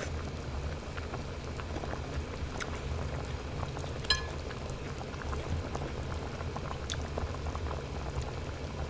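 Broth in a hot pot bubbling at a steady simmer, with small pops throughout. About four seconds in, chopsticks give one short ringing tap on a ceramic plate.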